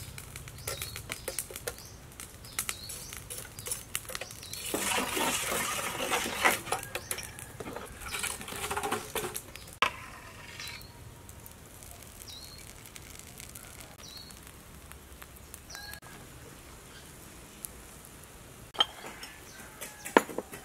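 A steel ladle stirring and scraping beaten egg in a large stainless-steel bowl for a few seconds, about five seconds in, with scattered small clicks and a few sharper utensil clinks.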